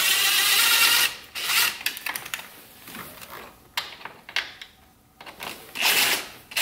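Cordless power driver with an 8 mm socket spinning out fuel rail bolts: a whirring run of about a second at the start, a short burst soon after, quieter clicks and handling in between, then another run near the end. The bolts turn out barely tight.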